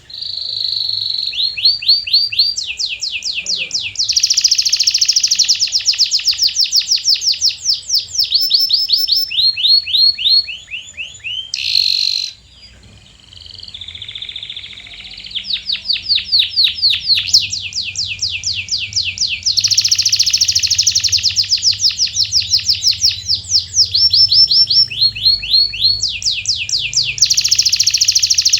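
Domestic canary singing: long rolling trills of rapidly repeated high notes, switching from one trill pattern to the next every few seconds, with a brief lull about twelve seconds in.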